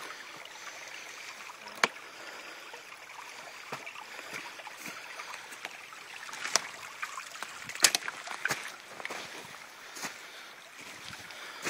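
A creek running steadily, with scattered sharp snaps and crunches of twigs and brush underfoot while walking; the loudest snaps come about two seconds in and about eight seconds in.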